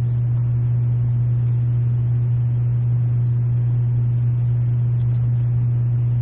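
A loud, steady low hum, one deep unchanging tone with no change in pitch or level.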